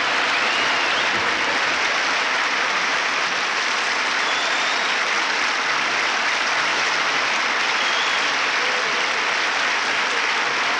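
Audience applause, dense and steady throughout.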